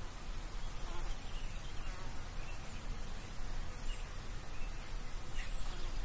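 Countryside outdoor ambience: an insect buzzing over a steady low rumble, with faint short bird chirps now and then.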